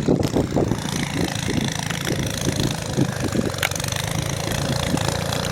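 An engine running steadily, with a low rumble and wind noise.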